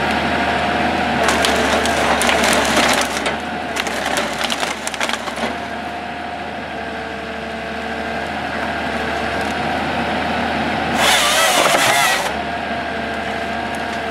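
A Timberjack forestry harvester working a conifer log: its engine and hydraulics run steadily under dense crackling and splintering of wood and branches in the first few seconds. About eleven seconds in comes a loud burst lasting about a second as the head's saw cuts through the log.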